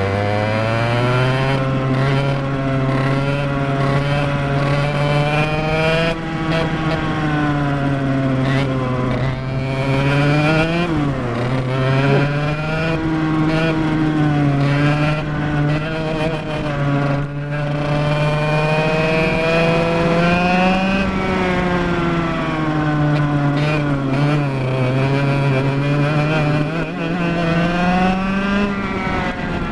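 Two-stroke racing kart engine, heard from on board, running hard with its note climbing along the straights and dropping as it slows for corners. The sharpest drop comes about eleven seconds in, with the revs building again toward the end.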